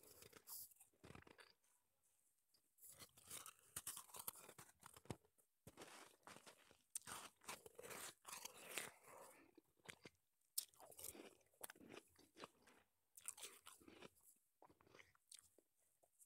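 Faint, close-miked crunching and chewing of soft shaved ice (snowball ice) in the mouth: irregular bursts of small crackles that come in clusters.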